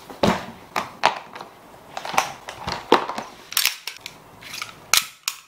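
About ten irregular sharp plastic clicks and knocks as a black hard case and a Glock 17 BB pistol are handled.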